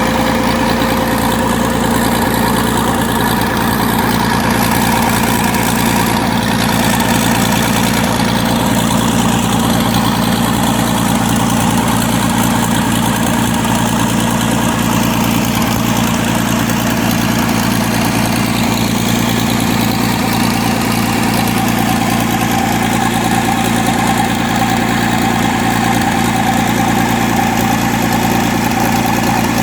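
Rebuilt Mitsubishi diesel engine from a Cat 320C excavator running steadily on a test bench, with an even, unchanging engine note.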